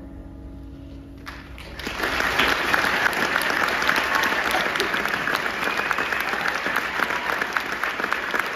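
The last held notes of the music fade out, then an audience bursts into applause about two seconds in, with loud, dense clapping that keeps going.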